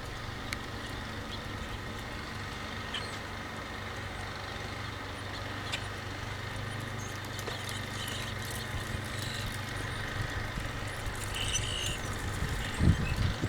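A motor vehicle engine idling with a steady low hum, faint ticks scattered over it. A few loud low thumps come right at the end.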